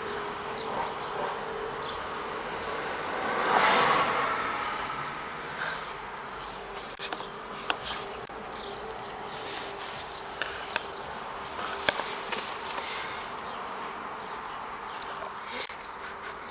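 A person snoring: one loud snore swells and fades about four seconds in, over a steady faint hum, with a few short clicks later on.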